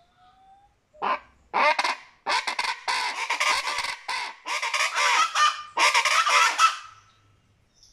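Chachalaca calling loudly: a run of repeated raucous cries, the call that the bird's name imitates, coming in several bursts from about a second in and stopping shortly before the end.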